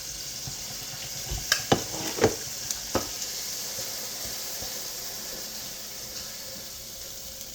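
Chicken thighs sizzling in hot oil in a frying pan, a steady hiss. About a second and a half in come four or five sharp clinks and knocks, closely spaced, as they are lifted out of the pan.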